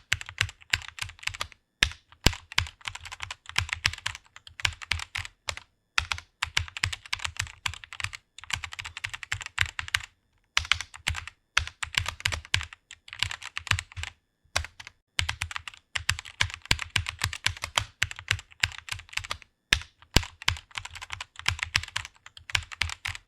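Typing on a computer keyboard: fast runs of key clicks with short pauses between bursts.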